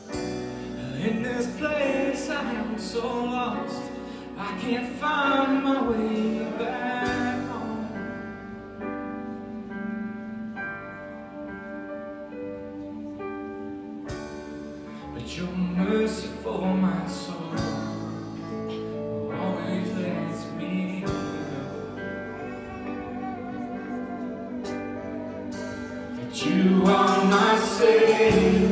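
Live worship song: singing over keyboard and bass accompaniment. The singing gets louder near the end as the chorus begins.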